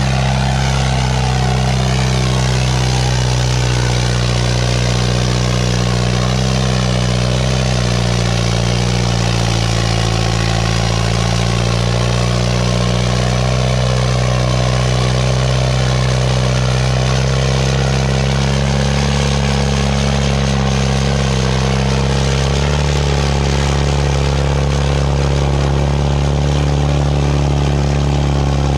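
Farmtrac 6055 tractor's diesel engine running loud and steady at high revs, under load as it drags a weighted harrow across sand.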